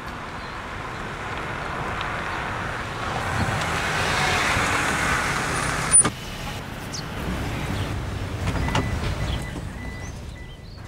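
Street traffic: a passing car's tyre and engine noise swells over a few seconds and breaks off with a sharp click about six seconds in. Quieter traffic noise rises and fades again shortly after.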